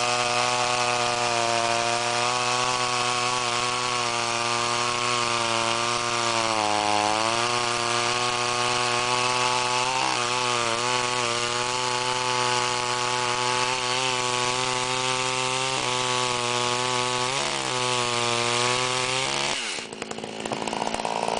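Dayton 4Z252 chainsaw (a Poulan 5200, 85cc two-stroke) running at full throttle while bucking a 29-inch red oak log with a 24-inch bar, the engine note sagging briefly a few times under load. Near the end the engine note drops suddenly.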